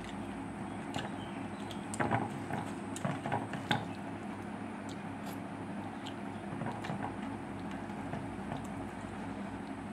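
Eating by hand from a steel plate: fingers mixing and squishing rice, with chewing and a few sharp clicks against the metal a couple of seconds in, over a steady low hum.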